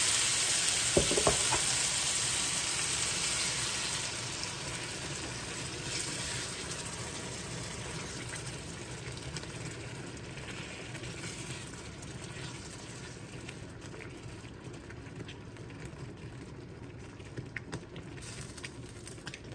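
Blended tomato sizzling in hot bacon fat with sausages in a frying pan, loud at first and dying down steadily as the pan cools. A few light clicks about a second in and near the end.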